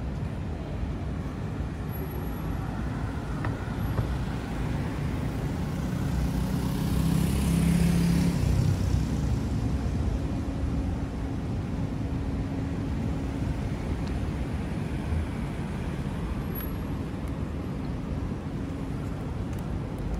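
City street traffic: a steady rumble of road vehicles, with one vehicle passing close and growing loudest about seven to nine seconds in before fading back.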